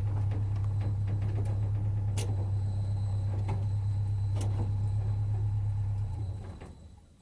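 A motor running with a steady low hum and a few light clicks, which dies away about six seconds in.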